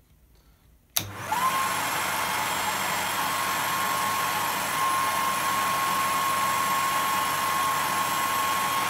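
A click about a second in as the power goes on, then a hair dryer starts and runs steadily at full power, its motor whine rising briefly and then holding one steady pitch. The dryer is the overload for a 6 A miniature circuit breaker, drawing about 10 A through it.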